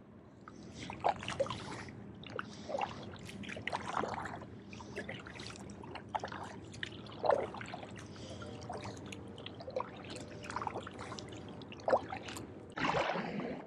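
Kayak paddling on calm water: a double-bladed paddle dipping in with short splashes, water trickling and dripping off the blades between strokes.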